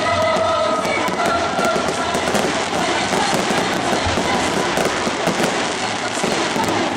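Fireworks display: a dense, continuous crackling of aerial shells and crackle effects bursting, with a few held tones in the first two seconds.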